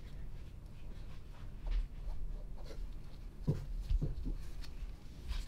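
Gloved fingers scratching and rubbing over a small lacquer-coated wooden piece, with a few soft handling knocks, over a steady low hum.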